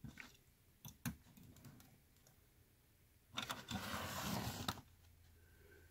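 A few light clicks as die-cast Hot Wheels cars are handled on a hard tabletop, then about a second and a half of rolling noise as a car's small plastic wheels run across the surface.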